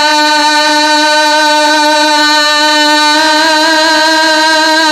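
A man's voice singing a naat, holding one long steady note, the pitch starting to waver slightly about three seconds in.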